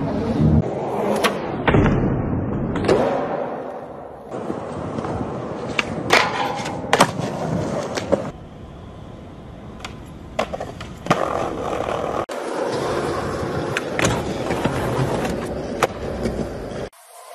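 Skateboard wheels rolling on concrete, broken by many sharp clacks of the board popping and landing.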